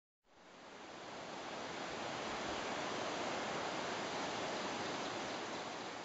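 Waterfall rushing: a steady wash of falling water that fades in over the first two seconds and then holds even.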